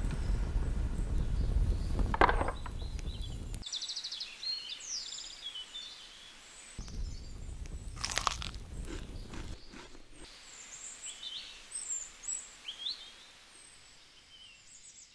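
Fire crackling with a low rush, cutting off abruptly about three and a half seconds in and coming back for a few seconds near the middle. Scattered short, high chirps sound over the quieter stretches.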